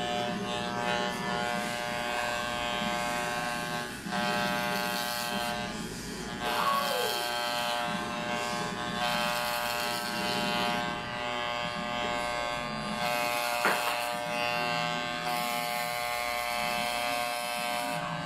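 Corded electric hair clippers buzzing steadily as they are run over the scalp to shave the head. The blade is clogged with oily hair and barely cutting.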